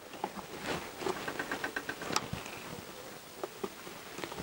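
Screwdriver tightening the small screws on the top covers of a Honda CBR1000F carburettor bank: light metallic clicks and ticks of the tool on the screw heads. A quick run of even ticks comes about a second in, and a sharper click about two seconds in.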